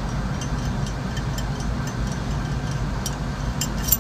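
Steady low machinery hum, like a nearby running engine or refrigeration unit, with faint, scattered metallic clicks of hand tools on the compressor, a few sharper ones near the end.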